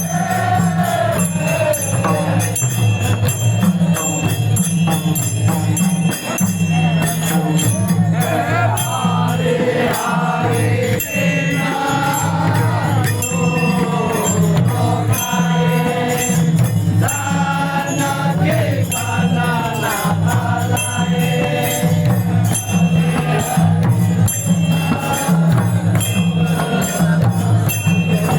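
Group devotional singing, a bhajan-style chant, over a steady repeating drum beat and continual clashing of small cymbals.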